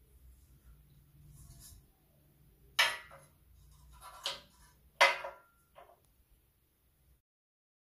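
Cut halves of a metal deodorant can set down on a metal-topped bench: four short, sharp metallic clanks, the second and fourth much fainter than the other two.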